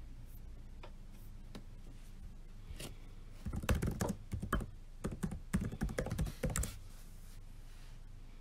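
Typing on a laptop keyboard: a quick run of keystrokes lasting about three seconds in the middle, after a few single clicks near the start.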